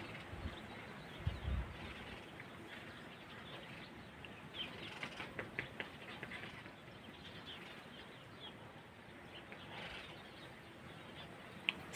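Faint outdoor background noise with a run of short, high bird chirps in the middle, and a low bump about a second and a half in.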